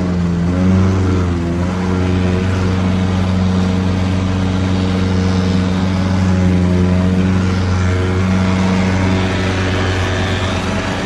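Lawnmower engine running steadily, its pitch sagging briefly and recovering about a second in and again around six seconds.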